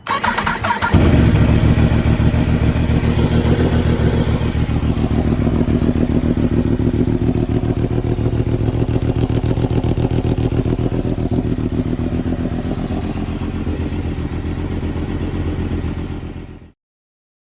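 Yamaha R1 (RN65) crossplane inline-four cold-started through an aftermarket exhaust: the starter cranks for about a second, the engine catches loud and settles into a fast cold idle that eases slightly, then the sound stops abruptly near the end.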